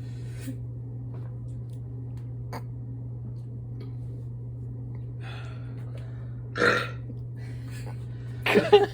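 One short burp about two thirds of the way in, over a steady low hum.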